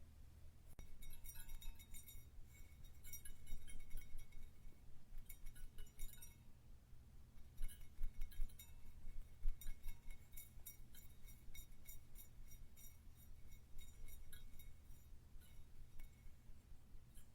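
Glass light bulb being handled: faint, irregular clusters of light clinks and taps, each with a brief glassy ring.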